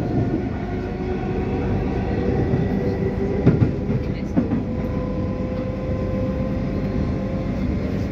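Electric suburban train running, heard from inside the carriage: a steady rumble of wheels on rails with a faint whine that creeps slightly up in pitch, and a couple of short knocks about three and a half and four and a half seconds in.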